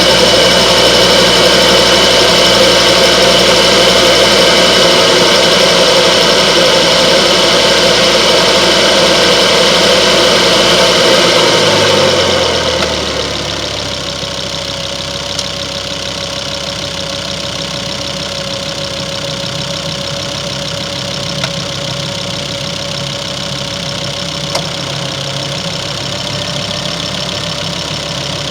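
Remapped T5 engine idling. About twelve seconds in, the idle drops in pitch and gets quieter, then holds steady at a lower idle.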